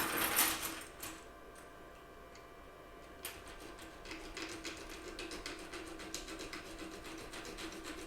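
Sandpaper rubbing on the plastic underside of a computer mouse button, sanding it down. A short loud scrape comes at the start, then from about three seconds in a long run of quick, even back-and-forth strokes.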